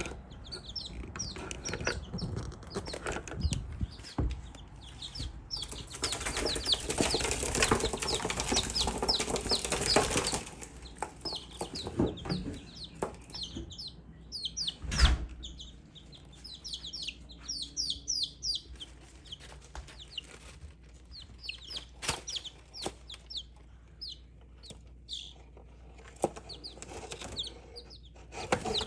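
Young miniature chickens peeping with many short, high, falling chirps. About six seconds in there are four seconds of loud rustling, and a single sharp knock comes near the middle.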